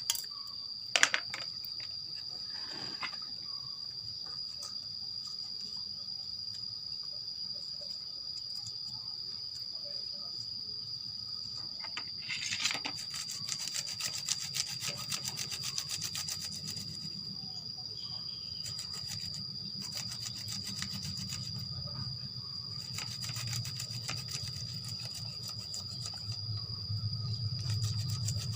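A cricket gives a steady high trill throughout. From about twelve seconds in, quick rasping strokes come in clusters as plant material is rubbed across a hand grater.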